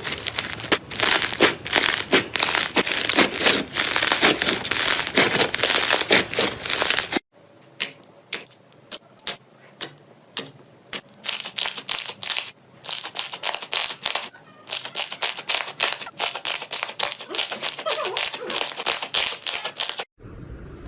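Slime being squeezed and pressed by hand, giving dense, loud crackling and popping. After a cut about seven seconds in, the crackles thin out into separate sharp snaps and pops.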